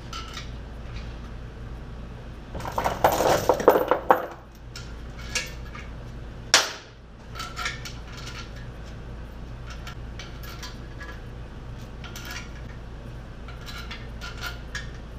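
Metal clinks and rattles of a steel block-off plate, bolts and hand tools being handled as the plate is fitted to a 350 small-block Chevy engine block. A dense burst of clatter comes about three seconds in and a single sharp clack at about six and a half seconds, over a steady low hum.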